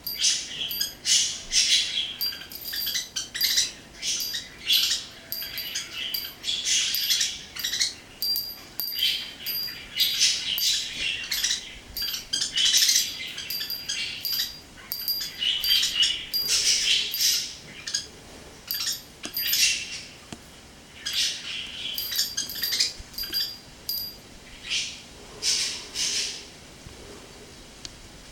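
Budgerigar chirping and chattering in a busy run of short, high calls with brief pauses, falling quiet near the end.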